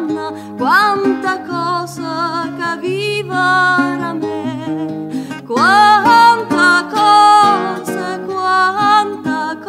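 Song: a voice sings a melody with vibrato and upward swoops over plucked acoustic guitar.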